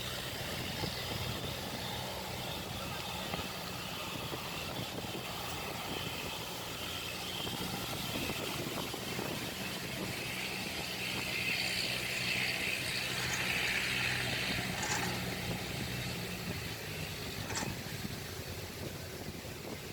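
Kubota 70 rice combine harvester's diesel engine running steadily under a wash of machinery noise, with a brighter, louder hiss for a few seconds past the middle.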